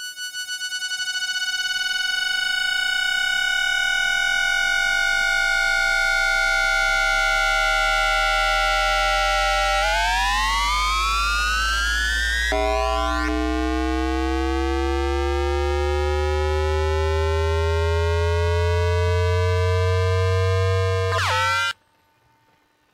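Hitachi two-level IGBT VVVF inverter of a Tokyu 5050 series train, picked up directly as electromagnetic noise by an induction-coil pickup. It starts with a stack of electronic tones gliding slowly down for about ten seconds, the falling tone of its asynchronous mode. The tones then jump and climb in steps as the pulse mode changes, while a low hum rises underneath, and the sound cuts off suddenly near the end.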